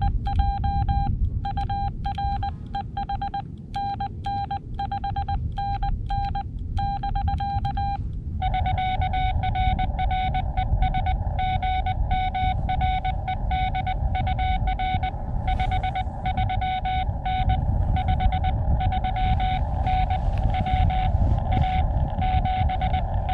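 Morse code (CW) tones from a Xiegu X6100 transceiver. For about the first eight seconds the operator's own keyed sidetone sends cleanly. Then the receiver opens and the other station's reply comes through at a similar pitch over a band of receiver hiss. A steady low rumble runs underneath.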